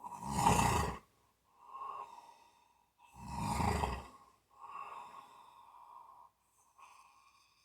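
A person snoring in sleep: two loud, fluttering snores about three seconds apart, each followed by softer breathing.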